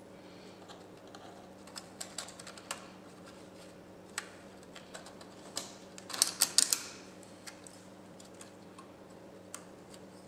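Small plastic clicks and taps from hands fitting parts and cable connectors into an opened HP Pavilion laptop's chassis, with a quick flurry of louder clicks about six seconds in, over a faint steady hum.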